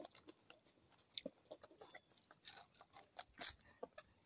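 Faint close-up chewing of crispy fried tripe, with small crunches and wet mouth clicks, and one louder crunch about three and a half seconds in.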